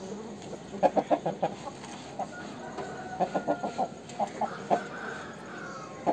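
Aseel rooster clucking in short runs of three to five quick, sharp clucks, several times over.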